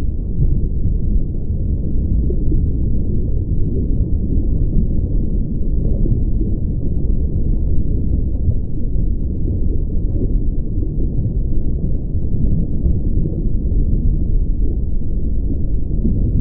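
Steady, muffled low rumble with nothing in the upper range, added over the end screen.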